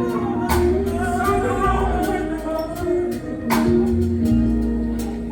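Live gospel band playing a soft backing vamp under a pause in the preaching: held chords, a bass line and cymbal or drum strikes about once a second.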